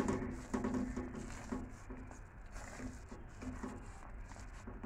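Silicone spatula stirring thick, wet semolina halwa in an aluminium pan, making repeated soft squelching and scraping strokes, a few a second and thinning towards the end.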